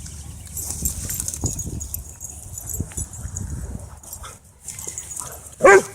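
A dog at play barks once, short and loud, near the end, over a low rumble of wind and movement.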